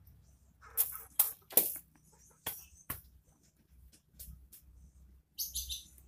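Black rubber strips being stretched and knotted onto a wooden slingshot fork by hand: a handful of sharp clicks and snaps, then softer ticks. A short burst of high chirping near the end.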